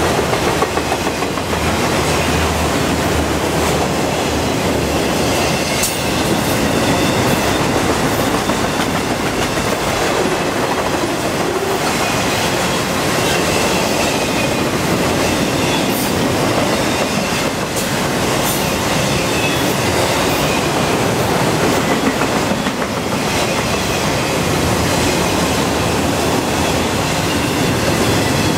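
Freight train of autorack cars passing close by at speed: a steady rumble of steel wheels on rail, with occasional clacks over rail joints and a faint high wheel squeal.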